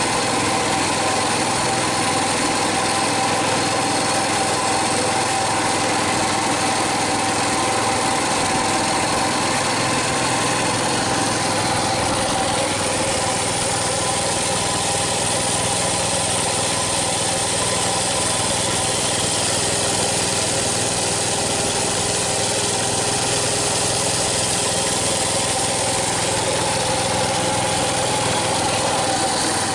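Coleman BT200X mini bike's 196cc single-cylinder engine running at a steady speed as the bike rolls along, heard close up from the rider's seat.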